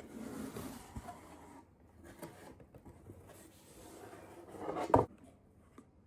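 Hands handling a solid-wood toy lockbox: rustling and a few light clicks, then a single sharp wooden knock about five seconds in.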